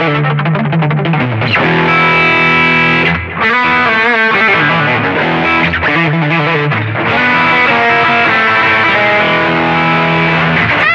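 Distorted electric guitar recorded direct, playing held chords and single notes with wide vibrato and string bends, with a short break a little past three seconds in.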